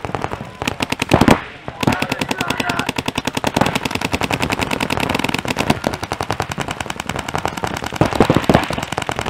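Paintball marker firing a rapid, steady stream of shots, with louder bursts about a second in and near the end.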